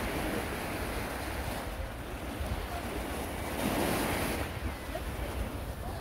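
Small waves breaking and washing up a sandy beach, with wind rumbling on the microphone; the surf swells louder for about a second near the middle.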